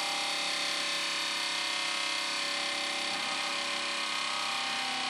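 Soft-close toilet lid creeping shut, its hinge damper giving a steady, eerie, many-toned whine that holds one pitch.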